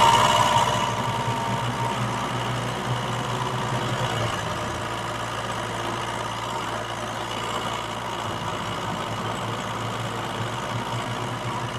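DIY mini tractor model running with a steady engine-like hum, a little louder for the first second and then even.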